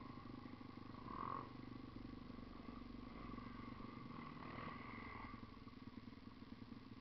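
Dirt bike engine running at low revs, heard from on board the bike, with a short louder swell about a second in.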